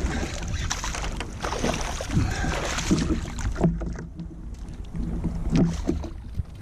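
Wind buffeting the microphone, with scattered knocks and clatters of handling on a fishing kayak.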